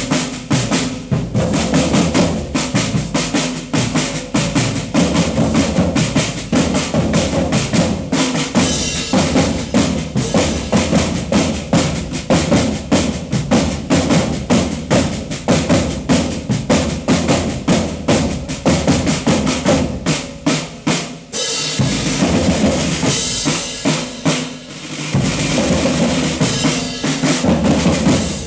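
A drumline of several marching drums struck with sticks, playing a fast, steady cadence together.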